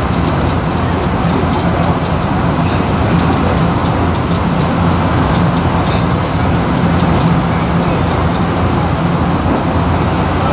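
A JR West Shin-Kaisoku (new rapid) electric train heard from inside the carriage while running at speed: a steady rumble of the running gear on the rails with a low hum.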